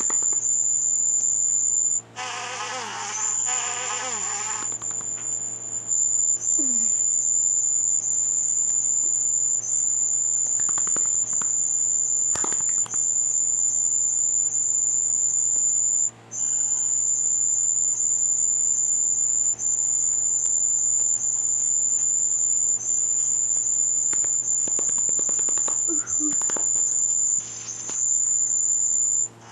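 A steady, high-pitched electronic whine from a sound effect, held almost without a break. It cuts out briefly about 2 s and 16 s in, with a burst of hiss from about 2 to 4.5 s, over a faint low hum.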